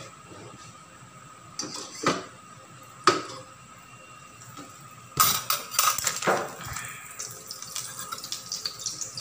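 A utensil clinks against a stainless steel pan a few times, then butter hits hot oil and sizzles, starting with a burst about five seconds in and going on as steady crackling and spattering while it melts.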